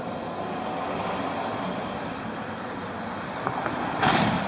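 Steady vehicle noise, a low rumble and hiss without a clear beat, cut by a short loud burst of noise about four seconds in.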